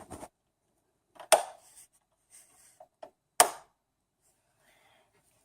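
Two sharp knocks about two seconds apart, with a few fainter taps and rustles between them.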